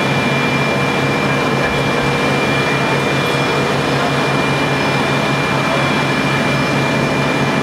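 Steady, loud drone of a fire truck's engine running, with a constant high whine over an even rush of noise.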